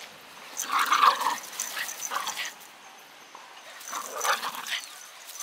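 Japanese Terriers sparring in play, giving rough growls and yips in two bursts, about a second in and again around four seconds in.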